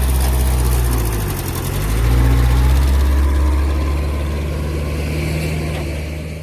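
Diesel engine running close by, low and steady. Its note dips briefly a little over a second in, picks up again, then fades toward the end.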